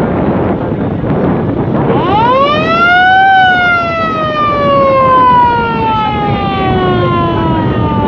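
Passenger river launch's motor siren, one long blast that winds up quickly to a high wail about two seconds in and then slowly winds down in pitch, over a steady rush of engine and wind noise.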